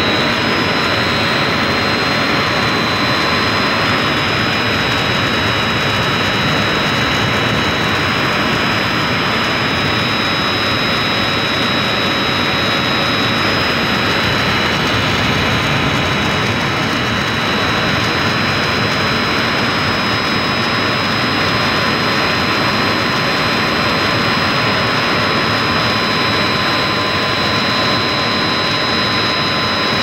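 Three-phase induction motor driving a secondary chilled-water pump, running steadily: a loud even machine noise with a constant high whine.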